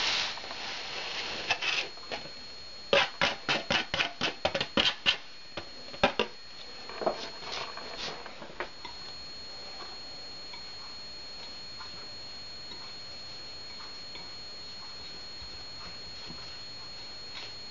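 A knife scraping dry spice rub out of a tipped bowl into a ceramic bowl, then a quick run of about ten sharp taps as the powder is knocked loose, with a few more knocks after. After that only quiet room hiss with a faint steady high whine.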